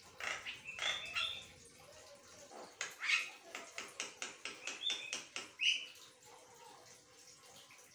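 Javan myna (jalak kebo) singing: a few harsh calls at the start, then, about three seconds in, a fast run of clicking chatter notes, about five a second, mixed with louder squawked notes.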